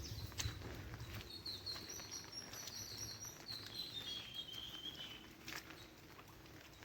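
A small songbird singing one rapid series of short high notes that steps down in pitch over about four seconds, over faint low background noise with a few scattered clicks.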